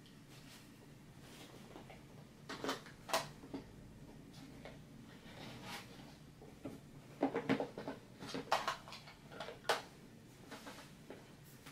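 Canvas tote bag rustling and being handled as items are packed into it, with short, irregular soft knocks: a few about three seconds in and a denser run in the second half.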